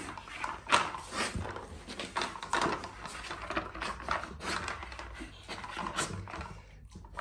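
A malamute sniffing and nosing at a stacked plastic treat puzzle, the plastic layers clacking and knocking irregularly as it pushes them around to uncover treats.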